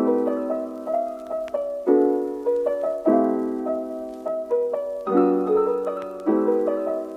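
Piano music without singing: sustained chords struck about every one to two seconds, with a few higher melody notes between them.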